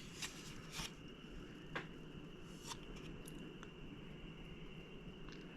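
Quiet room tone with a faint steady high whine, broken by a few faint, short clicks of small handling noises.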